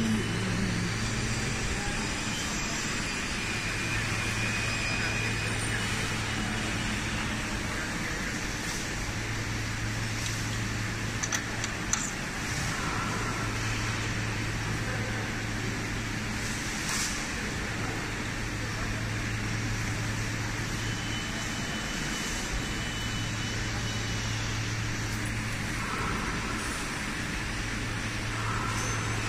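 Steady din of mask-making machines running on a factory floor, with a low hum that cuts in and out every few seconds and a sharp click about twelve seconds in.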